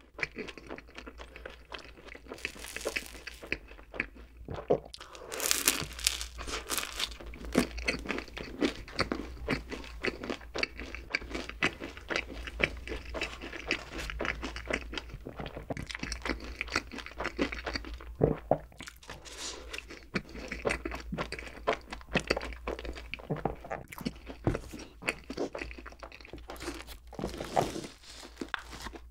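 Close-miked eating sounds: a person crunching and chewing bread and cream pastries in a stream of moist clicks and crackles. Near the end, a soft bun is torn off a pull-apart loaf.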